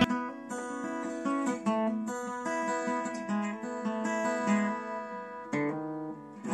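Acoustic guitar played as a run of plucked chords and single notes, heard through a Xiaomi Mi 9 phone's built-in microphone, with little deep bass.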